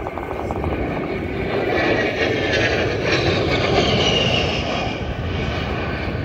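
A-10 Thunderbolt II's twin TF34 turbofan engines on a low fly-by pass: a steady jet rush with a high whine, building to its loudest about three to four seconds in and then easing slightly.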